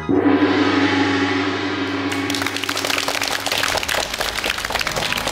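A single ringing musical hit ends the show's transition jingle and fades slowly. From about two seconds in, a studio audience applauds.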